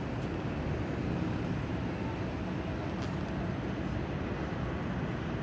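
Steady low rumble of distant city traffic, with a couple of faint clicks.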